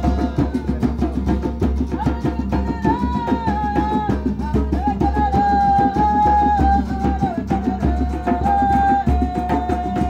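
Hand drum and acoustic guitar playing a steady, fast rhythm, with a long held melody line above them that shifts up and down in pitch from about two seconds in.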